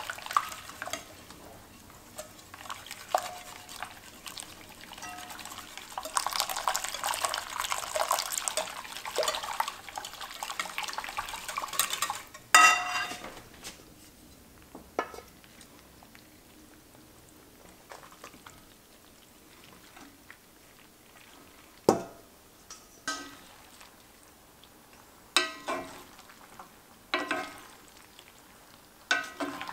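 A wire whisk beating the egg-and-cheese carbonara sauce in a glass bowl, a rapid continuous scraping for about twelve seconds. Then comes one ringing metal clink. After that a wooden spoon knocks now and then against an enamelled cast-iron pan as pasta is tossed.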